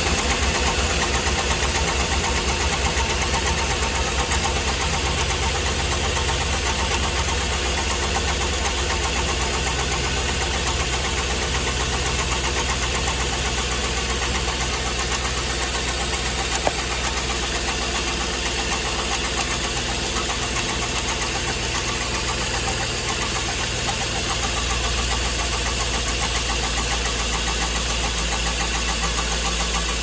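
GM LS V8 idling with its valve cover off, its exposed valvetrain making a pronounced knocking noise. The engine is misfiring on cylinder 7, and the mechanic suspects a cam lobe and roller lifter on that cylinder wiping each other out.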